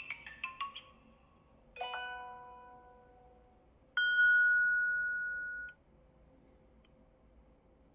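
Samsung Galaxy A5 (2016) notification tones being previewed one after another: a quick run of short plinks, then a single ringing chime that dies away, then one steady beep held for under two seconds that cuts off suddenly. Two short clicks follow, a second or so apart.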